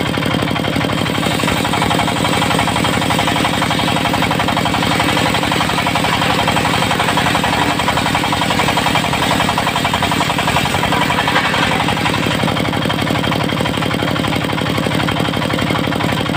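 Diesel engine of a portable circular sawmill running steadily with a rapid knocking clatter, a hiss rising in the middle as the saw works.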